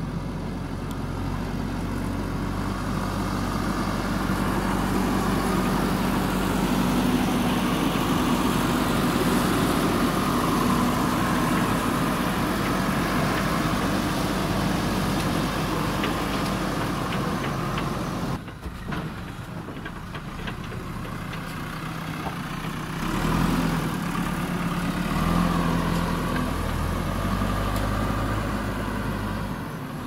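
Diesel engine of a JCB Eco Xcellence backhoe loader running as the machine drives and works its front loader bucket. The note swells and eases with the throttle, drops suddenly about 18 seconds in, and revs up again about 23 seconds in.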